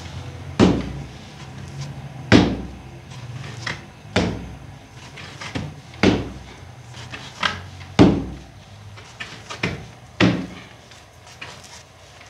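Heavy, regular thuds about every two seconds, with lighter taps between them, like bread dough being slapped down and worked by hand.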